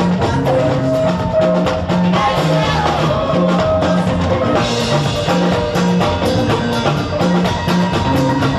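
Music with a steady drum beat, a repeating bass line and a melody over it.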